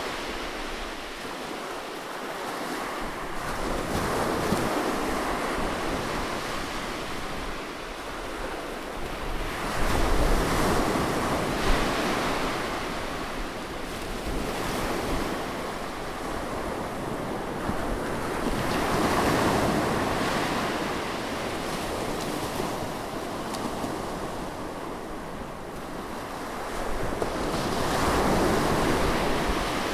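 Seaside waves breaking close by and washing back, a wash of surf that swells and ebbs every several seconds, loudest about ten seconds in.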